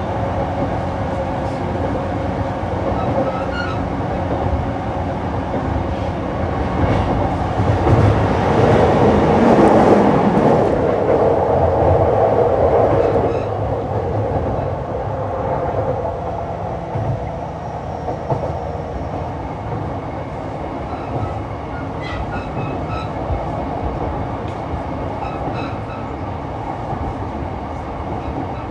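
Running sound of a JR East E233-3000 series electric train at speed, heard from on board: a steady rumble of wheels on rail with some clickety-clack. It swells louder for several seconds about a third of the way in, then settles back.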